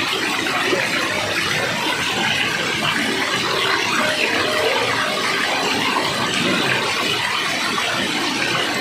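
Steady rushing of flowing water, an even unbroken wash of sound with no pauses.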